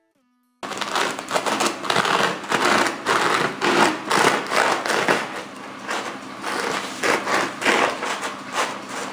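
Serrated bread knife sawing back and forth through the crisp crust of a ciabatta loaf: a rhythmic crackling scrape, about three strokes a second.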